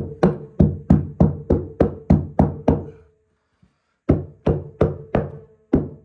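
Background music: a steady, fast percussive beat of about three hits a second, with a low held tone under it, that drops out completely for about a second midway and then resumes.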